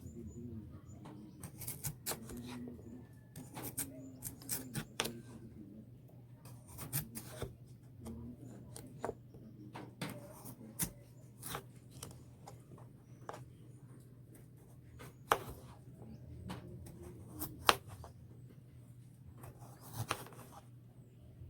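Knife slicing raw potatoes on a cutting board: irregular sharp knocks and clicks as the blade cuts through and strikes the board, over a low steady hum.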